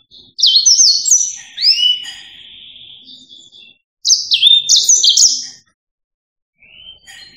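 Yellow-fronted canary singing: two loud phrases of quick, high, down-slurred whistled notes, the first trailing off in a longer, fading note, with softer twittering notes at the start and near the end.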